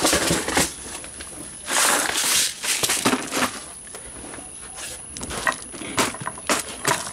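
Small metal parts and tools being handled on a bench while working on a padlock: a series of sharp clicks and knocks, with a short scraping rustle about two seconds in.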